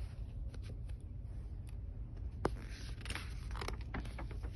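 Pages of a thin picture book being turned by hand: faint paper rustling and scraping, with a sharp tap about two and a half seconds in.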